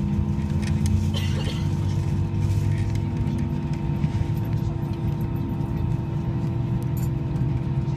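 Steady low drone and hum inside an Airbus A319 passenger cabin with the aircraft standing still, with a steady whining tone over it and a few faint ticks.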